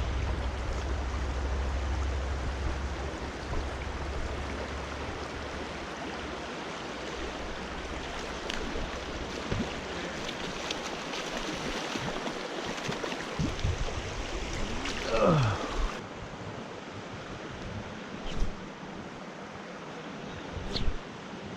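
Steady rushing of river water, with a low rumble in the first few seconds and a few faint knocks.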